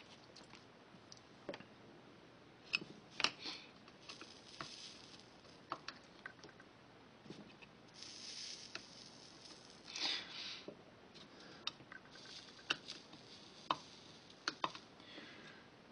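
Light clicks and taps of a soldering iron and a small file against HO-scale model rails in a metal turnout jig while the rail joints are soldered, with a few short hisses in between.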